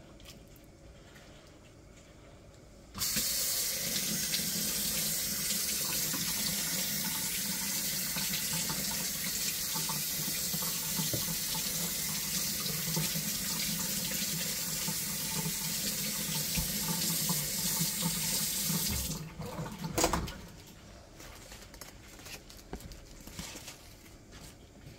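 Water running from a tap into a sink, most likely rinsing clay off the toy dinosaurs. It comes on suddenly about three seconds in and is shut off about sixteen seconds later. A sharp knock follows a second after.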